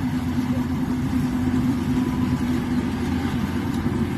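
Rice harvester's engine running steadily at a constant speed, a loud even drone with a strong steady hum.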